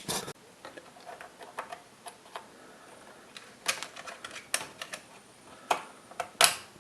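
Scattered sharp clicks and taps of hands working on a Lenovo ThinkPad T410 laptop's plastic case and parts as a DDR3 SO-DIMM RAM stick is fitted, with small clusters of clicks in the middle and near the end.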